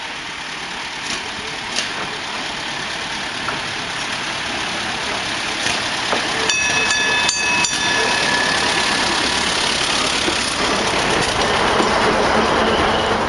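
Red 1932 Côtes-du-Nord railcar approaching along the track and passing close by: its running and wheel noise grows steadily louder. A brief high tone rings out about halfway through.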